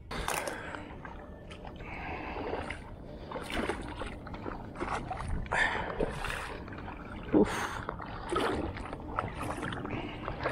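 Water sloshing and splashing in irregular bursts, about one or two a second, over a steady low rumble.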